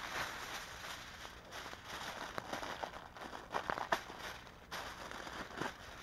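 Aluminium foil sheets rustling and crinkling as they are handled and smoothed flat, with a cluster of sharper crackles a little past halfway.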